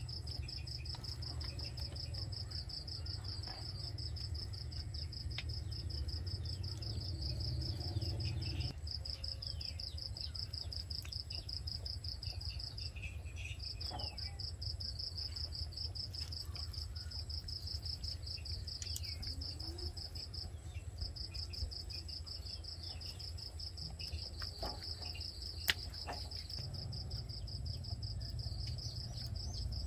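Crickets trilling in a steady high chirring that breaks off briefly twice, over a low background rumble. Faint handling clicks are scattered through it, with one sharp click late on.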